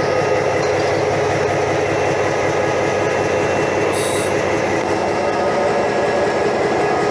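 Steady noise of a diesel locomotive running, heard inside its cab, with a constant hum and a short hiss about four seconds in.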